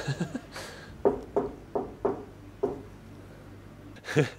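Knocking on a glass-panelled wooden door: five sharp knocks in an uneven run, then another short burst of knocks near the end.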